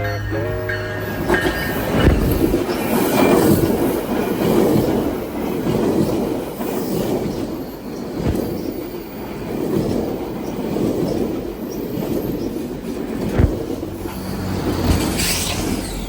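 A GO Transit commuter train's cars rolling past, wheels clacking over rail joints in repeated swells, with sharp knocks about two seconds in and again near the end.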